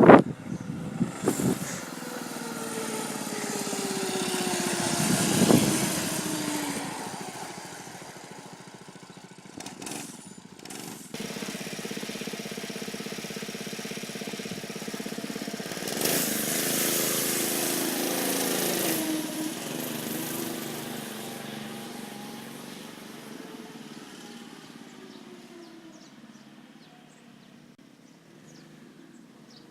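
Mini bike with a 212cc Predator single-cylinder engine riding past twice, its engine note swelling and dropping in pitch as it goes by, then fading into the distance.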